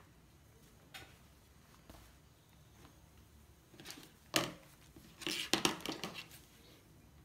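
Fabric scissors handled on a plastic cutting mat: one sharp click about four seconds in, then a quick run of clicks and rustling about a second later.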